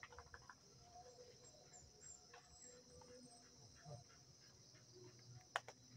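Near silence: a faint steady insect drone with a few faint bird chirps, and a single sharp click about five and a half seconds in.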